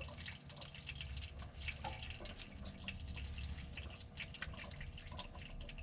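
Automatic transmission fluid dripping from the open transmission, its pan removed, in many small irregular drips.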